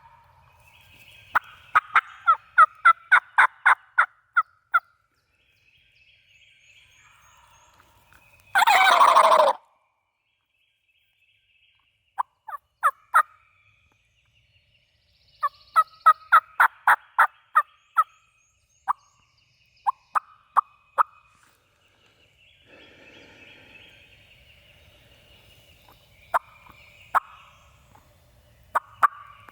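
Turkey yelping: runs of short, evenly spaced yelps at about three a second, repeated several times. About nine seconds in there is one louder, longer call that falls in pitch.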